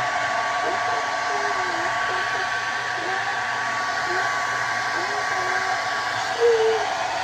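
Conair handheld hair dryer running steadily, its airflow with a constant motor whine, with a brief louder tone over it about six and a half seconds in.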